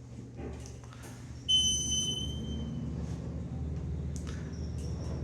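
Elevator car running upward with a steady low hum. About a second and a half in, a high electronic beep from the elevator sounds for about a second and a half.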